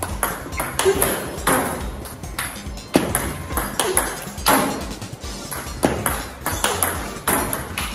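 Table tennis rally: the ball clicking off the bats and bouncing on the table, about two hits a second, over background music.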